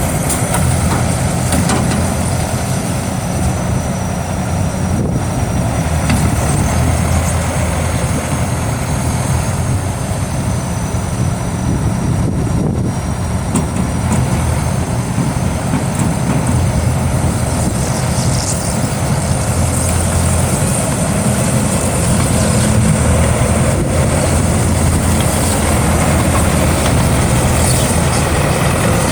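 Engine of a GAZ tracked all-terrain vehicle running steadily.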